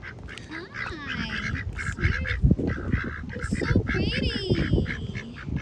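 Several white domestic ducks quacking in a quick, chattering run of short calls.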